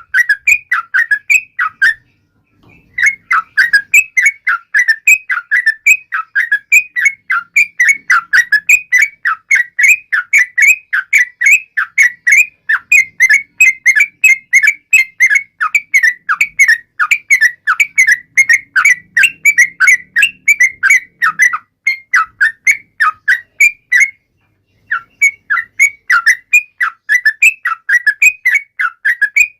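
Yellow-vented bulbul (trucuk) singing a rapid run of short, whistled chirping notes, several a second, breaking off briefly twice, about two seconds in and again near the end.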